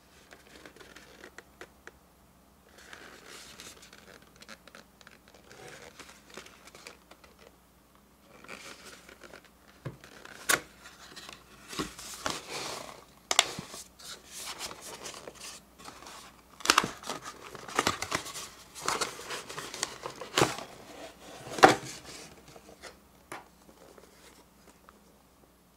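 A paperboard box being handled and opened: the cardboard flaps scrape and rustle, then a plastic container-shaped lunch box is pulled out of it, with several sharp plastic clicks and knocks, the loudest near the end.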